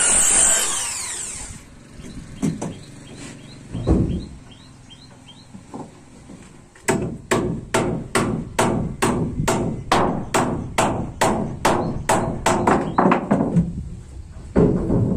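Hammer driving nails into wooden framing: a few single knocks, then a steady run of sharp blows about three a second from about seven seconds in, pausing briefly near the end. At the start a power saw winds down, its whine falling away.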